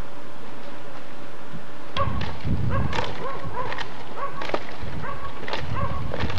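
Old wooden shingles being torn off a roof with a pry tool: starting about two seconds in, repeated sharp knocks and splintering cracks, mixed with short squeaks.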